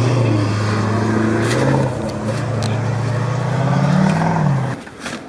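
Lifted Ford F-250 pickup's engine running steadily under load as it drives through deep snow, its pitch climbing a little about four seconds in. The engine sound cuts off suddenly near the end.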